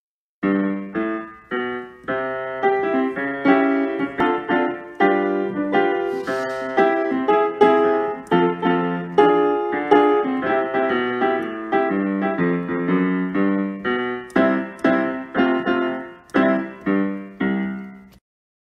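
Piano music: a steady run of struck notes, each fading away, that stops shortly before the end.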